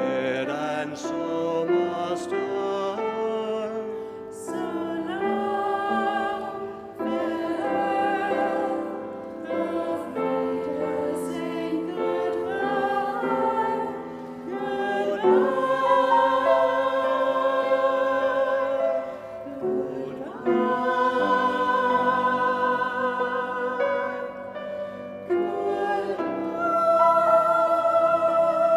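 Choir singing with piano accompaniment; near the end the voices hold a long note.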